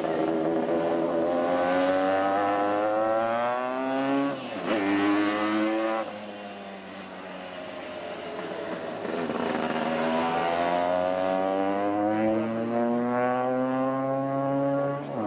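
Lambretta scooter sidecar outfit with a TS1 two-stroke engine accelerating hard, its engine note climbing through the gears with a gear change about four and a half seconds in. It drops back and quietens as it moves away, then climbs again through the gears as it comes round.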